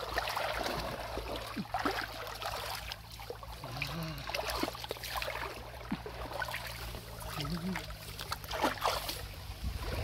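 Hands splashing and sloshing in shallow running water while groping along a muddy canal bed, over the steady trickle of the flowing stream. The splashes come in short, uneven bursts.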